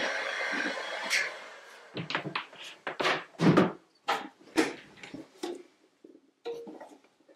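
Hot-air heat gun blowing, then switched off about a second in with a click as it dies away. This is followed by a run of sharp knocks and thuds as hard resin model parts are handled and set against each other and the table.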